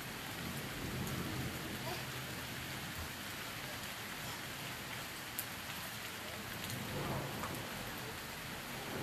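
Rain falling steadily during a thunderstorm, with scattered drops ticking close by and one sharper tick about five seconds in.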